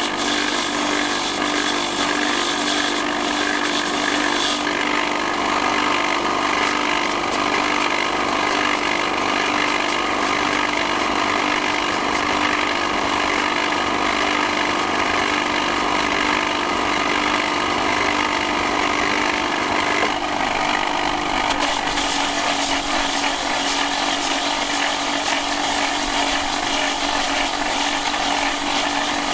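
Motor-driven abrasive grinding wheel running steadily with a constant hum, shaving down the husk of a coconut pressed against it. The high grinding hiss drops away after about four seconds, while the coconut is trimmed by knife, and comes back about twenty-one seconds in when the coconut goes back to the wheel.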